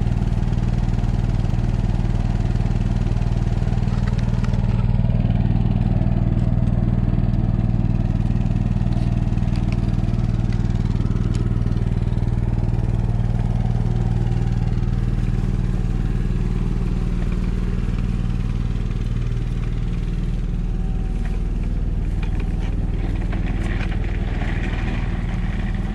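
Onan 5500-watt RV generator, its engine running on a newly fitted carburetor, with a steady, even drone: running nice and smooth. The sound grows a little fainter over the last part.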